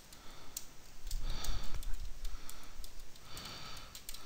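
Typing on a computer keyboard: a run of quick key clicks. Two audible breaths come in, one about a second in and one near the end.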